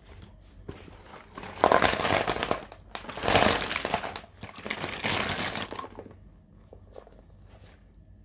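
Paint tubes, pencils and brushes tipped out of a fabric zip bag onto a sketchbook's cardboard cover, clattering and rattling in three loud pours, then a few light ticks as they settle.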